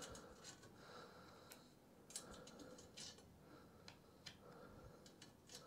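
Near silence with faint, irregular light clicks of small metal parts: T-nuts being slid into the tracks of an aluminium extrusion.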